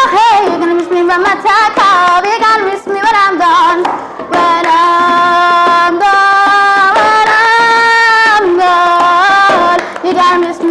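A woman's voice singing a wordless melody. It wavers and bends at first, then holds long steady notes that step between pitches, dropping out briefly about four seconds in.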